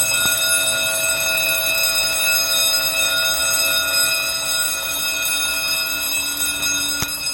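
Fire suppression alarm panel's sounder giving a steady, unbroken tone, the panel in alarm during a system test. A click near the end.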